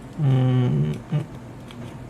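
A man's wordless hum, "hmm", held for under a second, then a short second "hm".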